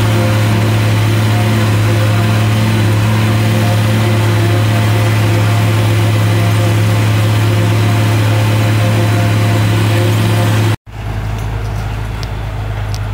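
The International 1256 tractor's diesel engine and the New Holland 790 corn chopper it pulls, heard from inside the cab as a loud, steady drone while chopping corn. About eleven seconds in, the sound cuts abruptly to the same tractor and chopper heard from outside, quieter, with a few faint clicks.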